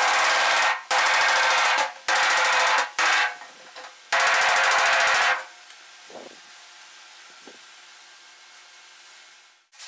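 Body hammer striking a steel car body panel against a dolly in quick bursts of rapid blows, about five bursts in the first five seconds, as high and low spots are worked level. After that only low background with a couple of soft knocks.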